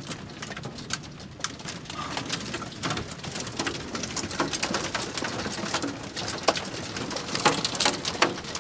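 Pea-sized hail and rain hitting the roof of a camper van, heard from inside: a dense, irregular patter of sharp ticks, with louder hits near the end.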